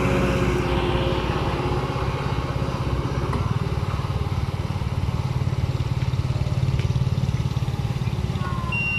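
An engine-driven machine running steadily with a low, fast-pulsing rumble, dropping away abruptly at the very end.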